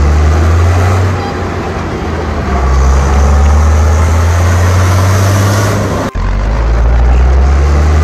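Off-road vehicle engine running loudly with a deep, steady drone. It eases slightly about a second in, rises again, and breaks off abruptly for an instant about six seconds in before carrying on.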